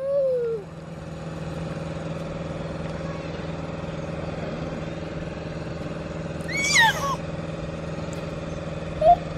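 Steady hum of a small motor running, with a child's short high-pitched squeals near the start, about seven seconds in and near the end.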